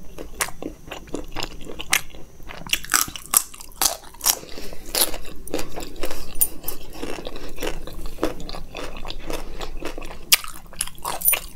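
Close-miked chewing of a mouthful of makki ki roti (cornmeal flatbread), with irregular crunchy mouth clicks and wet smacks.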